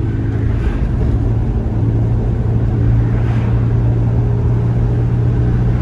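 Car driving along, heard from inside the cabin: a steady low hum of engine and road noise with no change in pace.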